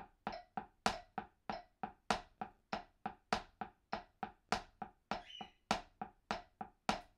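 Wooden drumsticks playing a steady single-stroke roll, hands alternating right-left, on a makeshift practice pad of books covered with a washcloth. The dull taps come about three a second, with every fourth stroke louder to accent the 'one'.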